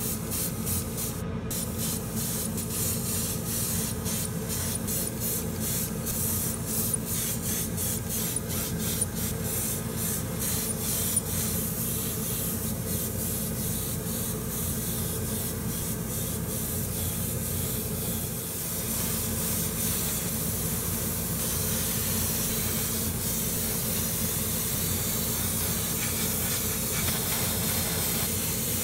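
Gravity-feed airbrush spraying clear coat onto small plastic model-car parts: a continuous hiss of air and paint over a steady low hum. The spray comes in quick pulses during the first half and runs steadier in the second half.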